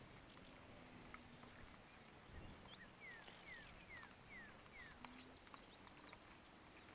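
Faint bird calls: a run of five short, quick downward-sliding whistled notes about three seconds in, followed by a few higher chirps, against near-silent outdoor background.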